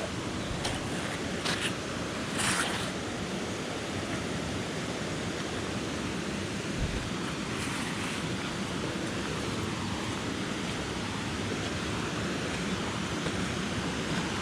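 Steady rushing of water from a jungle waterfall and its rocky stream, with a few short knocks in the first three seconds.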